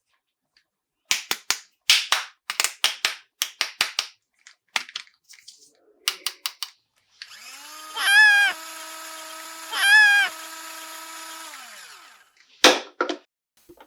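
Plastic toy pieces clicking and rattling as they are handled. Then a battery-powered toy runs with a steady electronic whir for about five seconds, with two loud warbling chirps; it slides down in pitch and stops.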